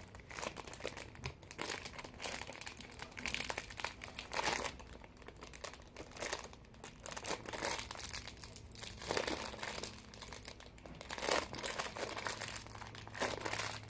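Plastic wrapping crinkling and rustling in irregular bursts as a new speed cube is unwrapped from its plastic.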